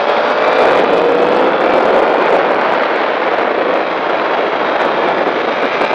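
Sport motorcycle engine heard onboard, accelerating hard in second gear, its tone rising over the first couple of seconds and then holding high, under heavy wind rush on the microphone.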